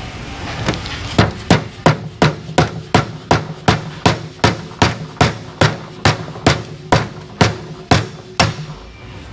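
A hammer striking metal engine parts about twenty times in a steady rhythm of roughly two and a half blows a second, each blow sharp with a short ring. The blows start about a second in and stop near the end, coming a little slower towards the last ones.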